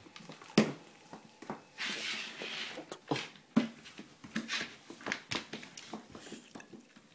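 Labrador retriever moving about in a small room: scattered clicks and knocks, with a loud knock about half a second in and a short rush of noise about two seconds in.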